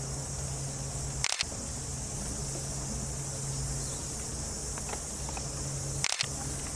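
Outdoor garden ambience: a steady high hiss under an on-and-off low hum, broken twice by a brief dropout with a click where the clips are cut together, about a second in and near the end.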